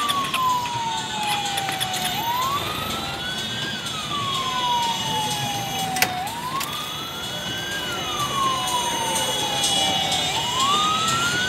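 Emergency-vehicle siren wailing: each cycle rises quickly, then falls slowly, about once every four seconds, with three full cycles heard. Street traffic noise runs underneath, and a single sharp click comes about six seconds in.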